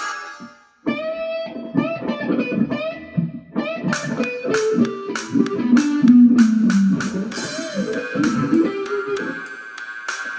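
1993 Gibson Les Paul electric guitar being played on its first sound test after being worked on. After a brief pause it plays a run of picked single notes with string bends and slides, with quicker, sharply picked notes in the second half.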